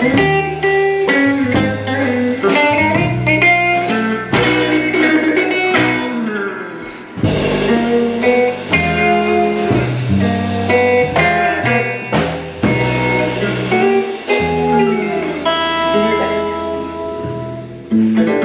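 Live instrumental jazz-rock trio: a hollow-body electric guitar plays single-note lines and chords through an amp, over upright bass and drums. The music drops quieter briefly about six seconds in and again in a softer stretch near the end.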